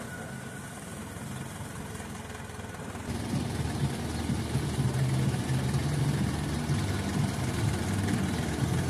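Diesel engine of a Mercedes-Benz light box truck running at low speed as the truck pulls in; about three seconds in it becomes louder and closer, a steady low engine note.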